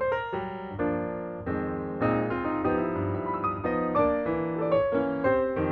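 Background piano music: struck notes and sustained chords at an easy pace.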